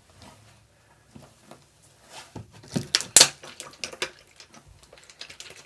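Wet cloud slime being kneaded and squeezed by hand, giving irregular sticky squelches and clicks, busiest and loudest in the middle.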